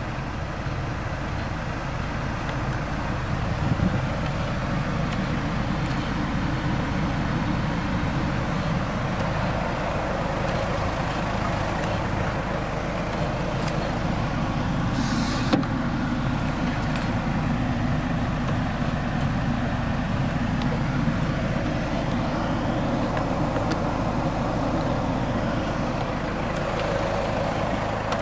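Steady vehicle rumble, strongest in the low end, with a brief hiss and a single click about halfway through.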